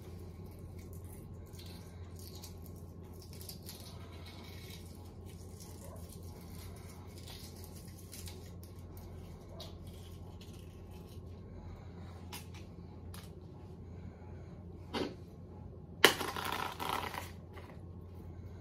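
Hard-boiled egg being peeled by hand: faint ticks and crackles of shell coming away. Near the end, a sharp knock followed by about a second of crackling.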